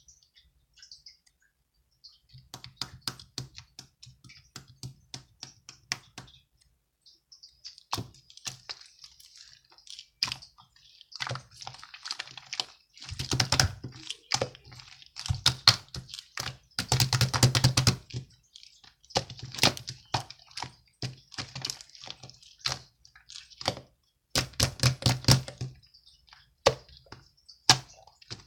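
Typing: rapid runs of key clicks with short pauses between them, starting after about two quiet seconds and growing denser and louder toward the middle.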